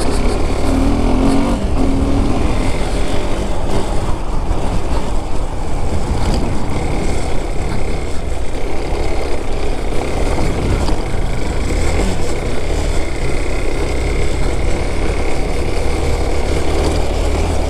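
KTM 390 Adventure's single-cylinder engine running steadily as the motorcycle rides along, under loud, steady wind rush on the microphone. A low note sounds in the first two seconds.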